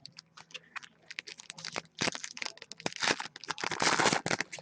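Crinkling and tearing of a foil trading-card pack wrapper being opened by hand: scattered sharp crackles at first, then a dense stretch of crinkling from about two seconds in until near the end.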